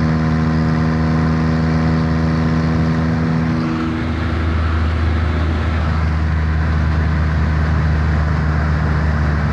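Normally aspirated 17 hp three-cylinder Kubota D850 diesel running steadily at high road speed, heard from inside the car. About four seconds in its higher engine tones fade and a rushing wind-and-road noise takes over, while the low drone carries on.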